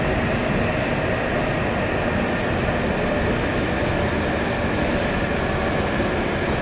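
E7 series Shinkansen train pulling into the platform on arrival, its cars running past in a steady rush and rumble with a faint steady whine.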